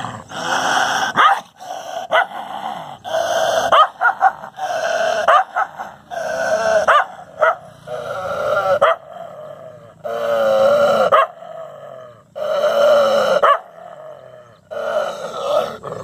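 A dog barking and howling in a string of about a dozen long, drawn-out calls with short gaps between them, set off by its own reflection in a mirror.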